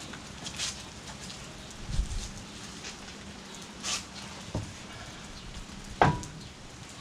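Scattered metal clinks and knocks from refitting a car wheel by hand with its lug nuts, with a dull thump about two seconds in and a sharp ringing clink about six seconds in.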